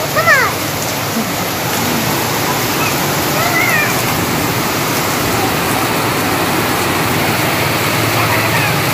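Heavy rain falling steadily onto a concrete yard, a dense even hiss. A child's short high-pitched squeals are heard right at the start and again about three and a half seconds in.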